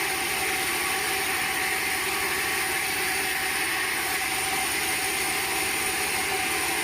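Sawmill machinery running steadily: a constant mechanical noise with steady tones held throughout.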